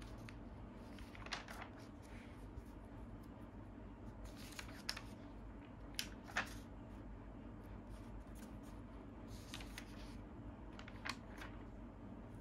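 Pages of a paper comic magazine being turned by hand: short paper rustles and flicks every few seconds, the sharpest pair about halfway through, over a faint steady hum.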